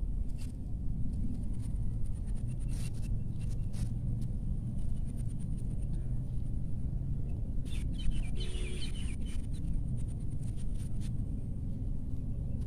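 Rural outdoor ambience: a steady low rumble with scattered faint clicks, and a brief bird call about two-thirds of the way through.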